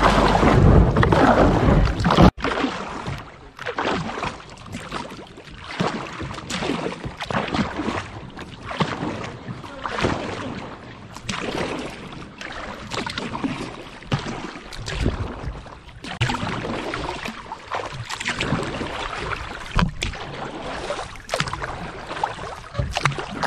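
Kayak paddle strokes dipping into and pulling through river water, a splashy stroke about once a second. Before that, music cuts off abruptly about two seconds in.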